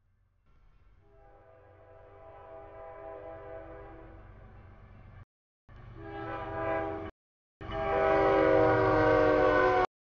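CSX freight locomotive's air horn sounding for a grade crossing as the train approaches. It plays a multi-note chord in three blasts: a long one that grows louder, a shorter one, then the loudest near the end.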